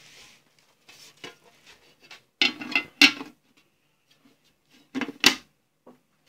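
A metal lid being set on a large metal cooking pot and shifted into place to seal it for dum (slow steaming): a series of metal clanks and scrapes, loudest about two and a half to three seconds in and again about five seconds in.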